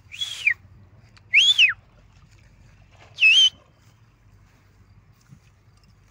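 Three short, loud whistles about a second and a half apart, each rising then falling in pitch.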